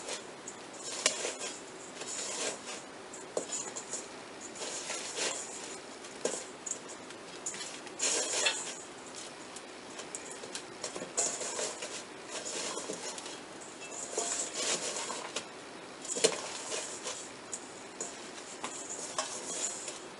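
Hands scraping damp, crumbly bath bomb mixture around a stainless steel bowl and packing it into a two-piece round mold. Irregular gritty scraping and rustling with small clicks from the mold against the bowl, and a sharper knock about 16 seconds in.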